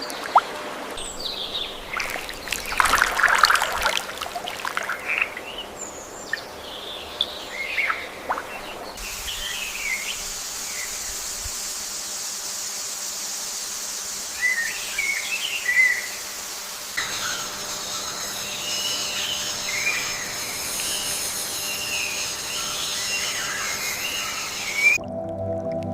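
Birds chirping and calling in short, scattered phrases over a steady background hiss; the background changes abruptly twice. Music begins near the end.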